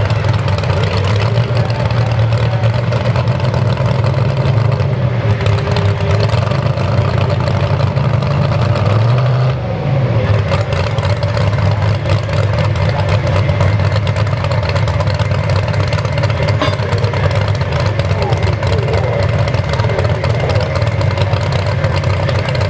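Modified pulling truck's engine running hard under full load as it drags a weight-transfer sled, a loud, steady exhaust note. About ten seconds in there is a brief dip and change in engine pitch before it pulls on.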